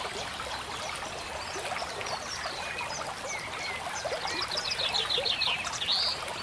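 A running stream with birds chirping and whistling over it. A quick trill of about eight notes comes about four seconds in, followed by a louder swooping call near the end.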